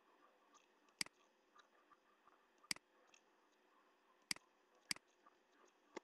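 Computer mouse clicking, five short sharp clicks at uneven intervals over a faint steady hiss.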